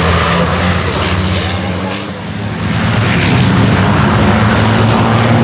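Racing trucks' engines running hard as they pass along the straight: a loud, continuous low drone with a brief dip about two seconds in.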